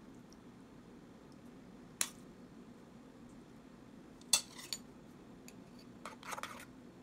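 Metal spoon clinking against dishes: a sharp tap on the plate about two seconds in, a few clinks a little past four seconds, then a quick run of scraping clinks near the end as the spoon stirs sauce in a metal pot. A faint steady hum sits underneath.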